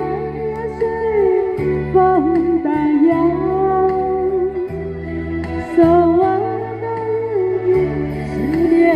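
A woman singing a slow, flowing melody into a handheld microphone over a karaoke backing track, with bass chords changing every second or two.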